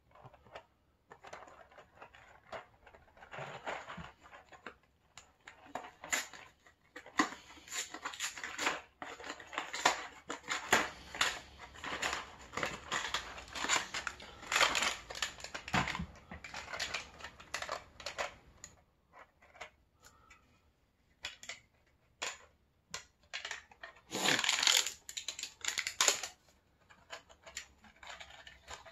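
Packaging handled and opened by hand: a cardboard snack box crinkles and rustles as it is torn open, with small clicks and crackles for much of the time. Near the end comes a shorter, louder crinkle as the plastic tray's foil lid is peeled back.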